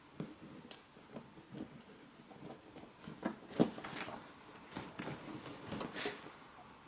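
Handling noise: scattered light clicks, taps and rustles as small gear and a rucksack's pockets are handled, with a few sharper knocks around the middle.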